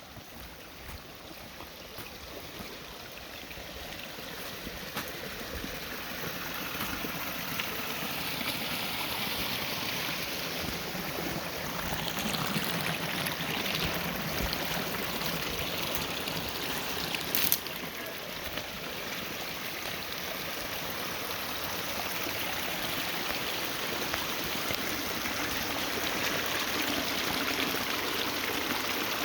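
Flowing stream water, a steady rushing that grows gradually louder, with one brief sharp click about two-thirds of the way through.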